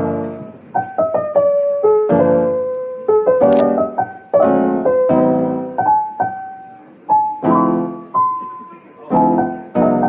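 Background piano music: struck chords alternating with single melody notes, each note decaying after it is struck.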